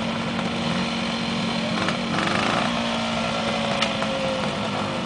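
Trials motorcycle engines running at low revs, with a short throttle blip about two seconds in and a single sharp click shortly before four seconds.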